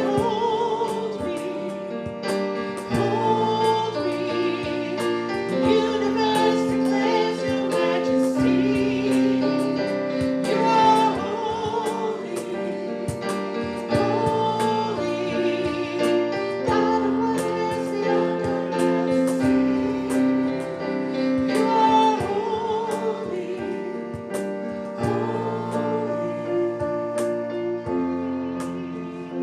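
Congregational hymn singing with piano accompaniment.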